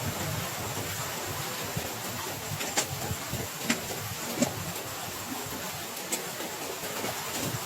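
Heavy rain falling steadily, with a few sharp taps of single drops landing near the middle.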